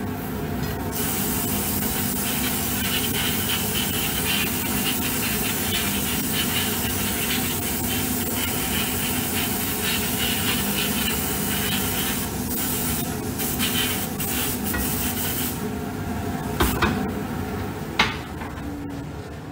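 Airbrush spraying coloured cocoa butter into a chocolate mold: a steady hiss with a few brief breaks, over a steady machine hum. Two sharp clicks near the end as the spraying stops.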